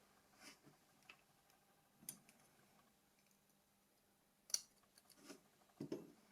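Faint, scattered clicks and ticks of small plastic phone parts being handled during disassembly, about five in all. The sharpest comes about four and a half seconds in, with quiet room tone between them.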